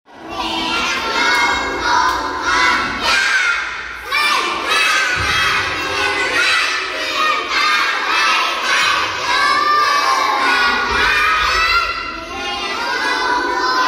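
A large group of young children singing a praise song together in Khmer, loudly and close to shouting, many voices at once without a break.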